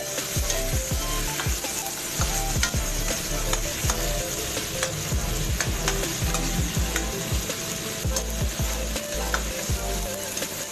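Food sizzling in a metal wok while a metal spatula stirs it, with steady hissing and irregular scrapes and knocks of the spatula against the pan.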